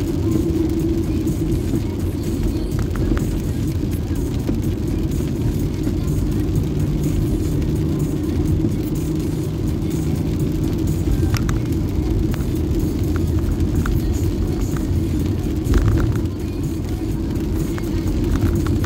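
Steady low road and engine rumble of a car driving, heard from inside the cabin, with a few faint clicks, the sharpest near the end.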